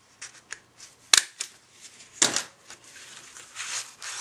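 Sharp snaps of a hand stapler fastening a ribbon pull tab to a paper card: one about a second in, the loudest, and a broader one about two seconds in, with cardstock rustling near the end.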